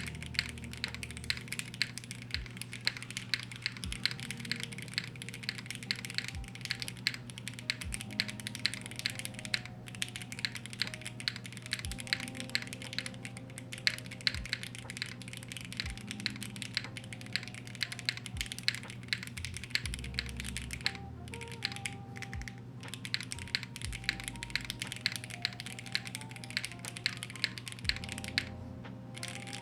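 Steady, fast typing on a Qi65 gasket-mounted 65% custom mechanical keyboard, its keystrokes clacking with a few short pauses. Background music plays underneath.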